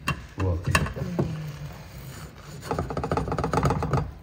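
Kitchen utensils knocking a few times, then rapid scraping strokes near the end.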